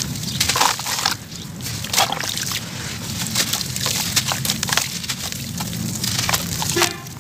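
Wet sand-cement lumps crumbled by hand over a basin of water: a steady run of gritty crunches and crackles, with crumbs and grit splashing into the water.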